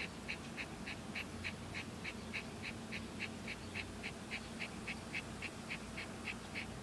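Domestic cat panting open-mouthed like a dog, quick short breaths in a steady rhythm of about three and a half a second: the cat is panting to shed heat on a very hot day.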